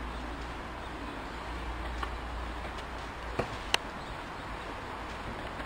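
Steady outdoor background noise with a low rumble. About three and a half seconds in come two short sharp clicks in quick succession, the second the louder.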